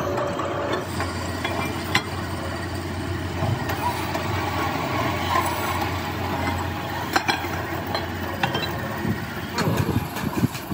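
Pillar drill running with a steady hum as it drills into a cast pump body. Near the end, several sharp metallic knocks and clicks.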